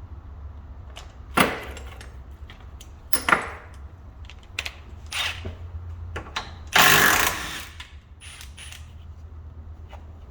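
Mechanic's tools working the bolts on the front differential bracket of a Toyota Previa: several sharp short clanks or bursts, and one longer burst of under a second about seven seconds in, over a steady low hum.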